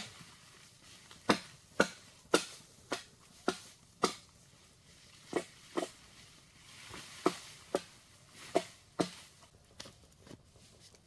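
Repeated sharp knocks from tool blows during building work, about two a second in short runs with pauses between: six in a row, then a pair, then four more.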